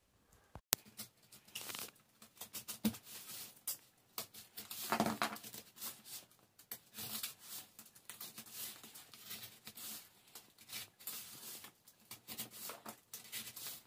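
Utility knife cutting through corrugated cardboard: a run of irregular scratching and crackling strokes as the blade is drawn along the lines, with one sharp click under a second in.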